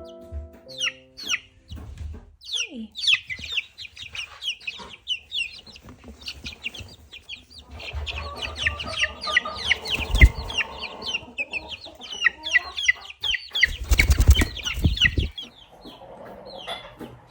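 A brood of chicks peeping: many short, high chirps that slide downward, overlapping several times a second. There are some thumps and rustles about two-thirds of the way in.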